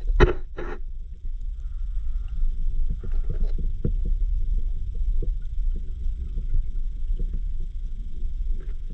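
Low rumble of river water moving around an underwater camera, heard from under the surface. Two short, loud knocks come just after the start, with scattered light ticks after them.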